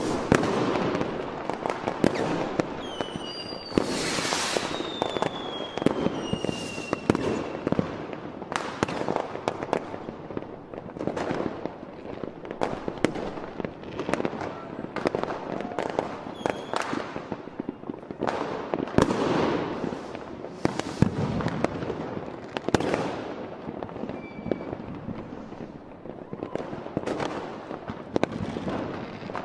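Fireworks going off without a break, a dense run of irregular bangs and crackles. Whistling rockets glide down in pitch around four to seven seconds in.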